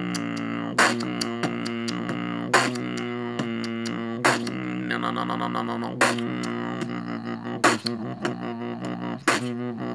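Beatboxing: a steady, buzzing vocal bass drone held throughout, with a sharp snare-like hit about every second and a half to two seconds and lighter clicks in between, in a regular beat.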